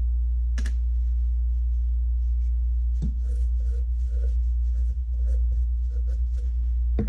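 Rag rubbing and wiping a steel motorcycle shift shaft clamped in a vise, degreasing it before welding, with a sharp click early and a light knock about three seconds in. A steady low hum sits underneath.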